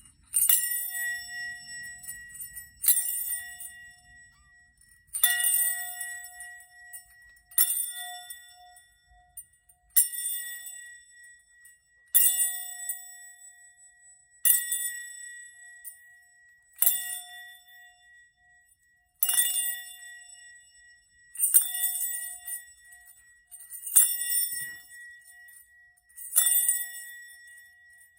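A small bell struck about every two and a half seconds, about twelve times. Each strike has a bright, jingly attack and a clear ringing tone that dies away before the next.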